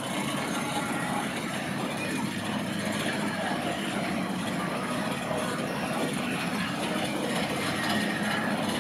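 Roller coaster train running along its track: a steady rumble of wheels.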